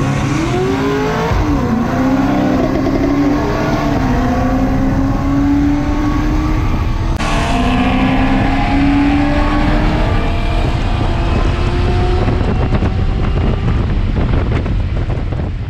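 Performance car's engine at full throttle from a race launch, heard inside the cabin: the pitch climbs and drops at each upshift, about a second and a half in, around four seconds and about seven seconds in, then rises in one long steady pull.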